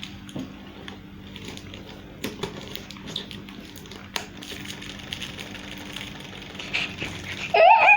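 Small battery-powered DC motor spinning the fan of a homemade cardboard air cooler, a steady low hum with light clicking and rattling from the cardboard. Near the end a short, loud, high whining cry breaks in.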